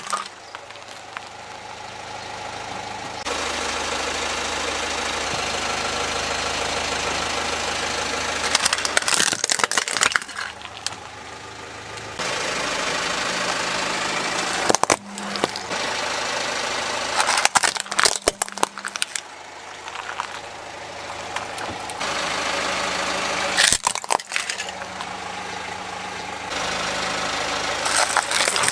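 A car engine running at idle as a tyre rolls over hard plastic toys, crushing them with several clusters of sharp cracks and crunches. The background level jumps abruptly at each cut between takes.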